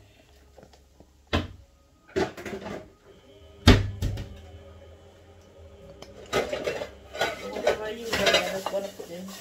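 A metal tin being worked with a hand can opener: three sharp metallic knocks, the last one loudest, about three and a half seconds in.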